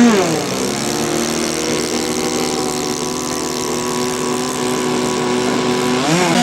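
Radio-controlled model airplane engine running at a steady pitch, then briefly dropping and rising again near the end as the throttle changes.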